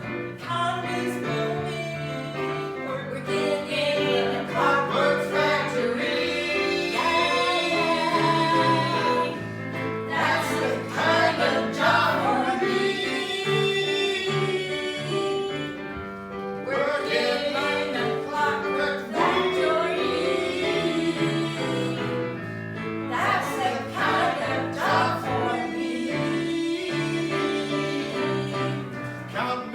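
Live song from a stage musical: a singing voice carries a melody over instrumental accompaniment with a moving bass line.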